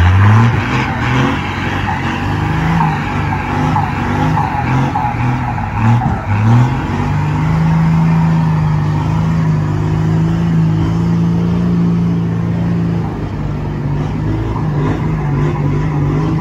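Heavy six-wheel truck's diesel engine revving hard under load as it struggles through deep mud, its rear wheels spinning for grip. The engine pitch climbs at the start, rises and falls for several seconds, then holds high and steady from about seven seconds in.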